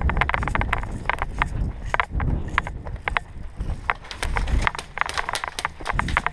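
Running footsteps crunching through dry leaves and twigs, with irregular clicks and rattles of gear, over a low rumble.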